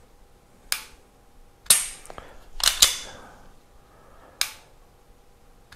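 Sharp mechanical clicks from a striker-fired pistol's trigger and action being worked in dry-fire: five clicks spaced roughly a second apart, with a quick pair near the middle.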